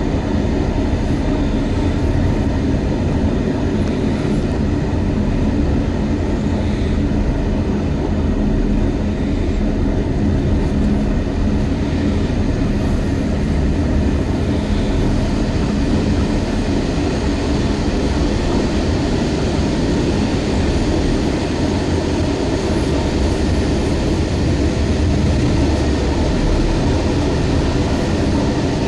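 Train running at speed, heard from inside the locomotive cab: a steady low rumble with a constant hum.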